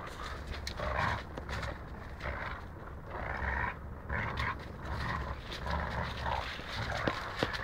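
Two dogs tugging and grappling over a rope toy, making short rough play noises about once a second, with two sharp clicks near the end.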